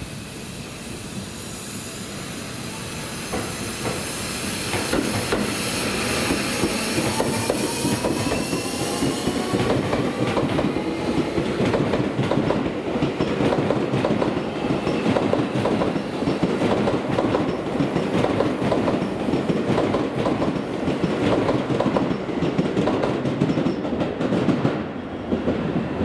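Seibu 40000 series electric train pulling away from a station: its Toshiba IGBT-VVVF inverter and permanent-magnet synchronous motors whine in tones that climb in pitch as it accelerates. After about ten seconds the wheels clatter rhythmically over rail joints and points, growing louder as the cars pass, then thin out near the end as the last car goes by.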